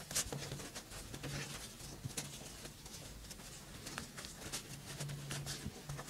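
Cotton fabric ties rustling softly as they are handled and tied into a bow, with scattered small ticks and brushes from the handling.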